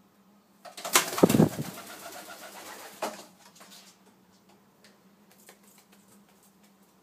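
Racing pigeon's wings flapping in a loud, fluttering burst of about two seconds as it flies off a perch in the loft, followed by a few faint scuffs.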